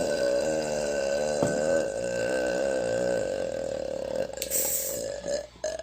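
One long, drawn-out burp from a woman, wavering in pitch, that fades out near the end.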